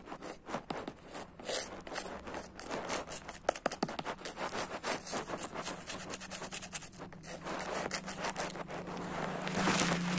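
A painting tool scraping across canvas in quick, irregular strokes, getting louder near the end.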